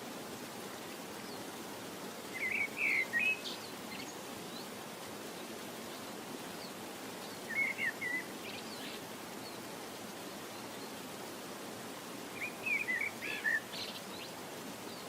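A small bird chirping in three short bursts about five seconds apart, over a steady background hiss.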